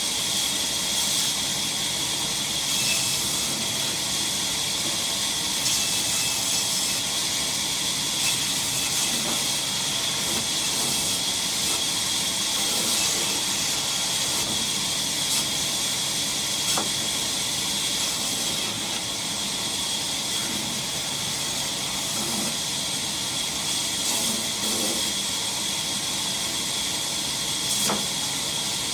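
Sawmill machinery running steadily: a constant high-pitched hiss with a few faint knocks.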